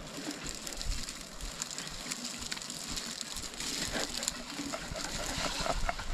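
Dry gorse and dead bracken rustling and crackling as a mountain biker pushes the bike through the overgrown path, growing louder as the rider comes closer.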